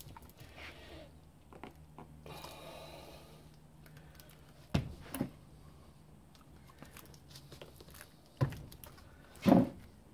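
Gloved hands pressing a brake caliper piston home by hand through its rubber dust seal: soft rubbing and handling noise, with a few short knocks from the cast-iron caliper, the loudest near the end. A faint steady hum runs underneath.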